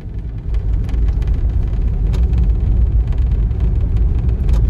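Low, steady rumble of an off-road 4x4 driving, heard from inside the vehicle, growing louder about half a second in, with a few faint knocks and rattles.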